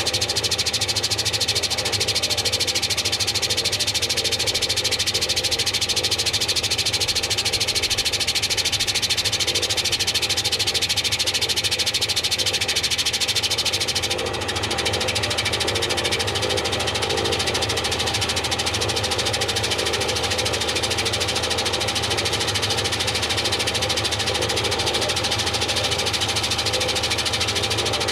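Front-loading washing machine running steadily with balloons in its drum, a dense mechanical whirr. There is a brief dip in level about halfway through.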